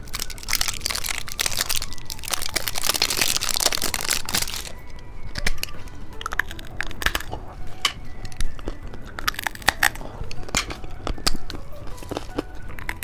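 Plastic candy packaging crinkling and rustling as it is handled and opened, dense for the first four seconds or so, then giving way to scattered light clicks and taps.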